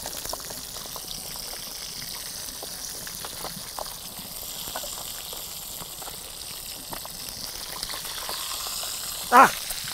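Fish frying in hot oil in a wide disc pan over a wood fire: a steady sizzle with light crackling. Near the end comes a brief, loud, wavering squeal.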